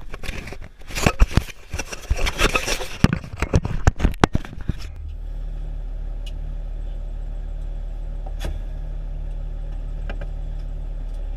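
A run of loud, sharp cracks and bangs for about the first five seconds, then a fire engine's diesel engine idling with a steady low hum.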